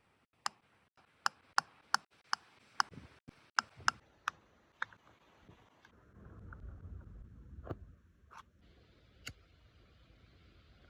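A series of sharp clicks or taps, about ten in quick, uneven succession over the first five seconds, then three more spaced out later.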